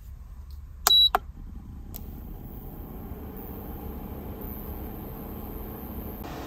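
Portable cooking stove under a hot-pot being switched on: two loud sharp clicks with a short beep about a second in, then the stove running with a steady hiss and a faint high whine.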